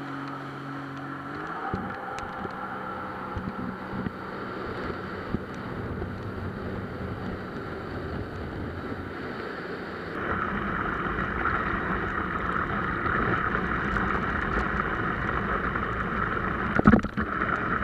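Jet ski engine opening up about a second and a half in, then running at speed under wind and rushing water. The water noise grows louder from about ten seconds in, and there is a sudden loud thump and splash near the end.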